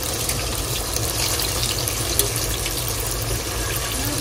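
Small whole aubergines deep-frying in hot oil in a stainless-steel fry basket: a steady sizzle and bubbling with fine crackles, and one short click about halfway through.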